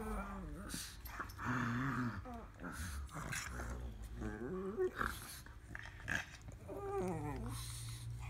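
A pug puppy and a larger shepherd-type dog play-wrestling, growling and grumbling: several wavering, whiny vocal calls about a second long each, with sharp clicks in between.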